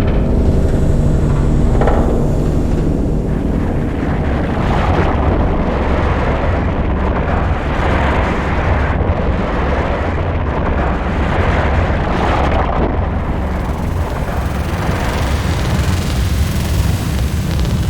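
Synthesized dark cinematic ambient drone: a deep, continuous rumble under slow, noisy swells that rise and fall, with a hissing upper layer that grows brighter near the end.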